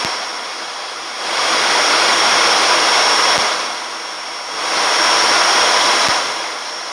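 Flight-deck noise in an ATR 72-600 turboprop on final approach: a steady hiss of airflow and engine noise that swells twice, each time for a couple of seconds, over a thin high steady tone, with two small clicks.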